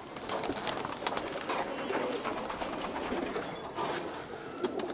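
Flock of domestic pigeons feeding on grain on a concrete floor: many quick clicks and wing flutters, with low cooing mixed in.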